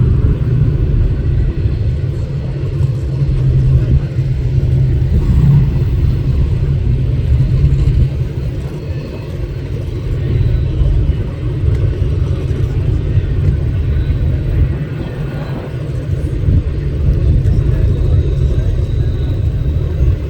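Norfolk Southern mixed freight train's cars rolling past, a steady low rumble from the wheels on the rails that swells and eases slightly.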